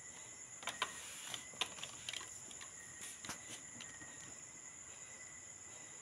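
Crickets chirring steadily in a high, continuous drone, with several short sharp clicks in the first half.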